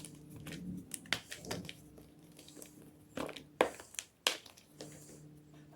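Gym chalk being crushed, making a series of sharp crunches and crumbling crackles, the loudest about three to four and a half seconds in, over a faint steady low hum.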